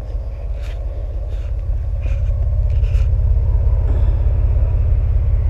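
Car engine idling with a steady, even exhaust pulse out of its twin tailpipes, warming up after standing for several weeks. It gets a little louder about halfway through, with a few light scuffs over it.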